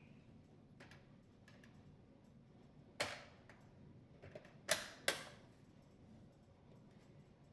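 Dishwasher door panel parts being handled: a handful of sharp clacks and knocks, the loudest three between about three and five seconds in, some with a short ring.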